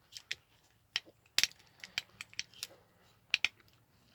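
Irregular light clicks and small metallic clinks of parts being handled while an ignition switch is fitted, a dozen or so separate taps; the sharpest come about a second and a half in and again past three seconds.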